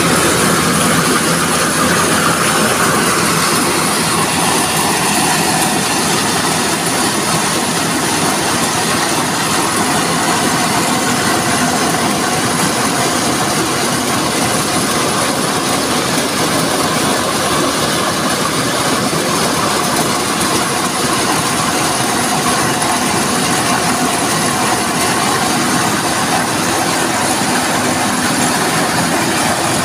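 Corn sheller with a blower fan running steadily while shelling corn, a loud, dense, unbroken mechanical rattle.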